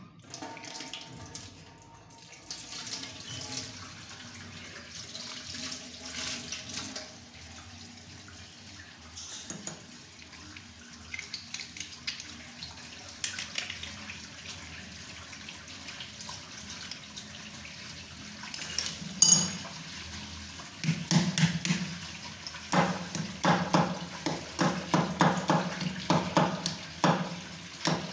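A kitchen tap running into a stainless-steel sink while a small tap part is rinsed and rubbed by hand under the stream, the splashing changing as the hands move. There is a brief sharp sound about two-thirds of the way through, and quick irregular splashes near the end.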